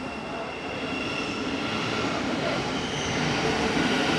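Thameslink Class 700 electric multiple unit pulling out of the platform: wheels rumbling on the rails under a faint electric whine, growing louder as the carriages pass.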